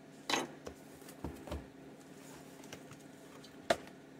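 A cardboard box being opened by hand: a brief rustle of the lid just after the start, two soft knocks around a second in, and a sharp click near the end.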